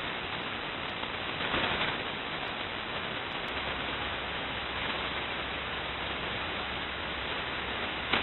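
Shortwave receiver hiss and static from KiwiSDR web receivers in upper-sideband mode, tuned to the empty HF channels 11175 kHz and 8992 kHz with no station transmitting. There is a brief swell in the noise about a second and a half in, and a low hum joins it about three and a half seconds in.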